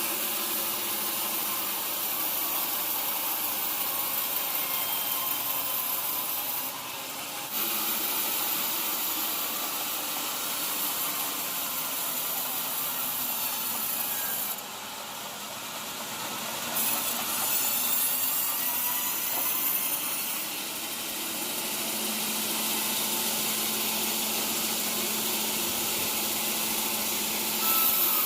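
Sawmill saw cutting through an old teak log: a steady, noisy cutting sound that dips briefly about seven seconds in and again for about two seconds around the middle.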